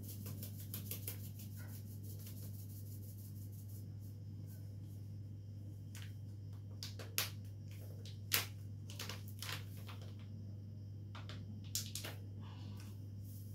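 A few scattered sharp clicks and crinkles as a metal teaspoon is dug into and scraped against an opened sachet of instant yeast, over a low steady hum.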